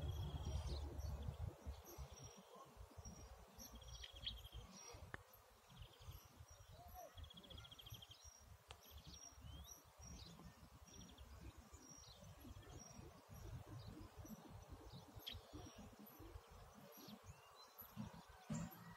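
Faint outdoor birdsong: small birds chirping and trilling, with one short high note repeated over and over. A low wind rumble on the microphone is loudest in the first second or two.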